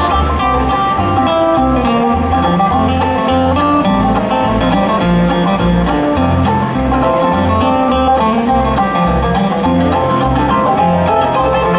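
Acoustic bluegrass band playing an instrumental break: picked string instruments over a steady, stepping bass line.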